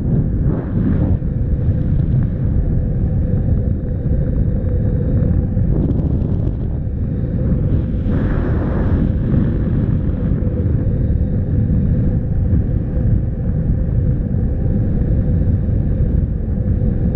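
Airflow from paraglider flight buffeting the camera's microphone: a loud, steady low rumble of wind noise, rising briefly in a stronger gust about eight seconds in.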